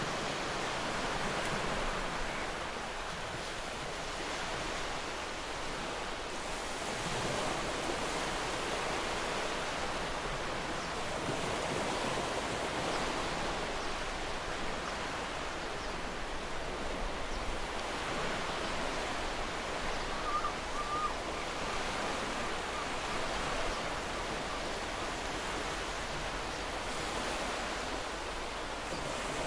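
Ocean surf washing ashore: a continuous rush of breaking waves that swells and eases every few seconds.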